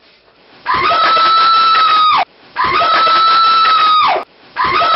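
A high-pitched scream repeated three times, about every two seconds. Each one rises quickly, holds one pitch for about a second and a half, then drops off.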